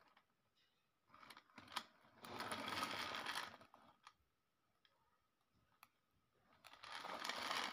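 Faint handling noise: a few light clicks and a soft rustle lasting about a second and a half, as a toy car is put into a tray of liquid.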